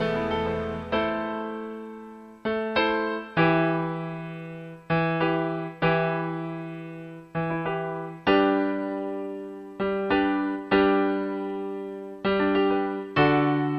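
Solo piano playing slow chords in an instrumental break of a song, each chord struck and left to fade before the next, about one every one to one and a half seconds.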